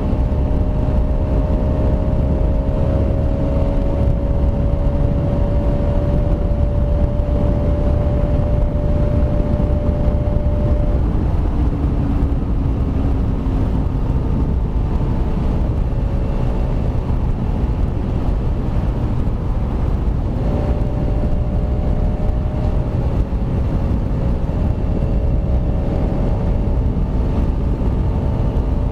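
Kawasaki Rouser RS200's single-cylinder engine running at steady cruising speed under a constant low rush of road and wind noise. The engine note eases off about eleven seconds in, with a short falling tone, and picks up again to a steady cruise about twenty seconds in.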